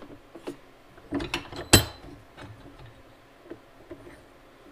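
Metal clicks and knocks as a cut metal bracket is bent straight in a bench vise, with one sharp, ringing metal clank a little under two seconds in.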